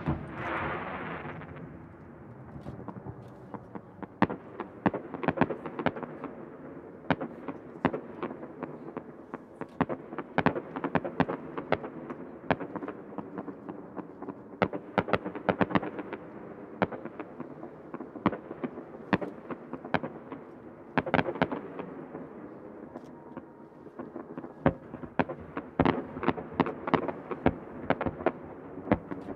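Fireworks display: a shell bursts right at the start with a fading crackle, then rapid runs of sharp pops and cracks come in clusters with short lulls, thickest near the end.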